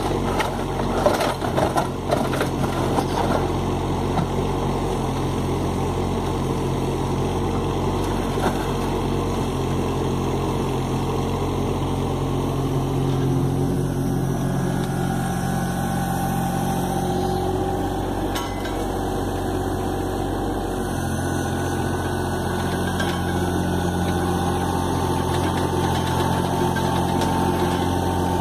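John Deere 17D mini excavator's diesel engine running steadily while its hydraulics work the bucket through wet concrete, with a few knocks and scrapes of the bucket against the wooden bin in the first few seconds.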